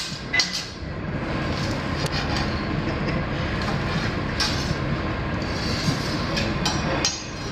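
Metal spatula and fork clicking and scraping on a steel teppanyaki griddle as egg is chopped and pushed around, over a steady sizzling hiss from the hot plate.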